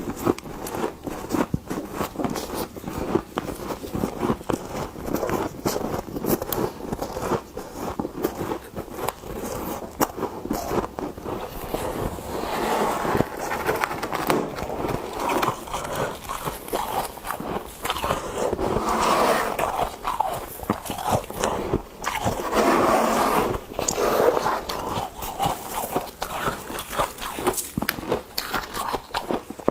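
Frost being scooped and scraped, a dense run of crunching and crackling with louder swells now and then.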